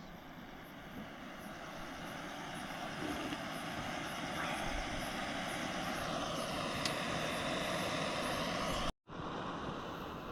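A passing vehicle: a steady rushing noise that slowly swells, with a faint falling whine about six seconds in. It cuts out abruptly near the end and then resumes.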